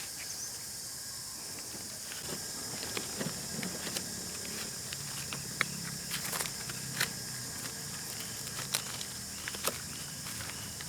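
Quiet rural outdoor ambience: a steady high hiss with scattered light clicks and taps, and a faint low hum that comes in after about two seconds.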